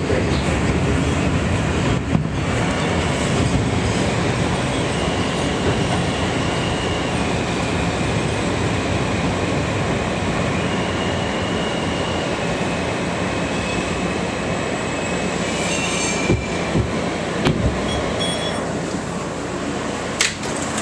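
R160A subway car running on the rails, a steady loud rumble of wheels and motors with thin high wheel squeals now and then; a few sharp clicks come near the end as the noise eases slightly.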